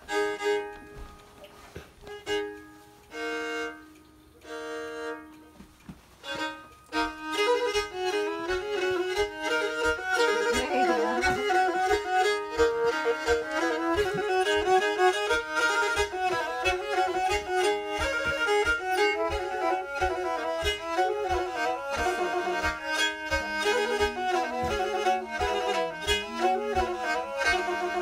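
Pontic lyra (kemenche) bowed: a few separate held notes with pauses at first, then from about seven seconds in a continuous melody with several notes sounding together.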